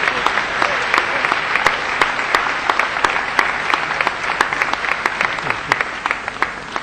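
Audience applauding: dense, steady clapping that thins out and dies away near the end.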